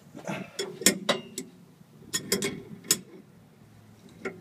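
Sharp metal clicks and clinks as an adjustable crescent wrench is fitted onto the hex of a CNG high-pressure fuel filter housing, a handful of irregular strikes with short pauses between them.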